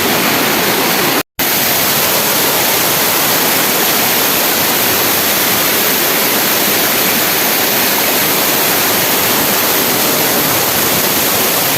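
Waterfall rushing steadily, a loud, even roar of falling water. The sound cuts out completely for an instant about a second in.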